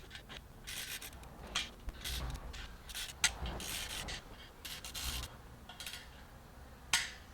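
Irregular short scrapes and a few sharp clicks of tools and parts being handled during brake rotor and sprocket bolt work.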